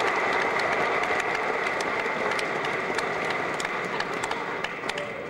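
Congregation noise: a dense, steady wash of sound shot through with scattered sharp claps, slowly fading toward the end.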